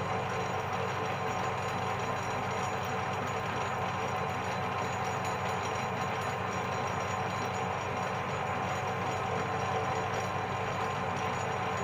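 Metal lathe running steadily, a constant mechanical hum with a whine of several steady tones over a broad rushing noise.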